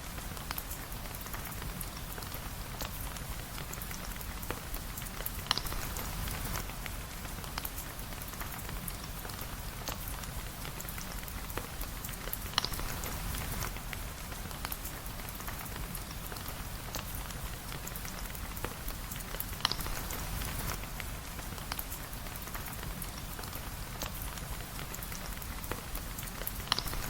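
Steady rain falling, a dense patter of fine drops over a low rumble, with a sharp single click about every seven seconds, four times in all.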